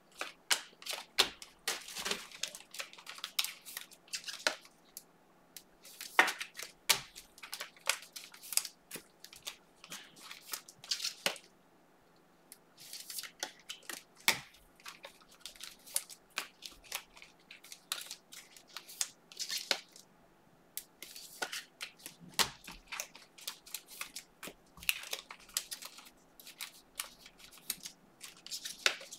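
Trading-card pack wrappers being torn and crinkled and cards being handled: a long string of short crackles and clicks, with a brief lull about twelve seconds in.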